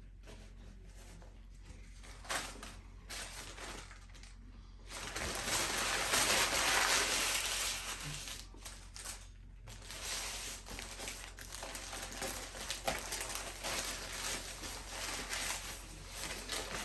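Food wrapper being handled, crinkling and rustling in irregular spurts, loudest from about five to eight seconds in.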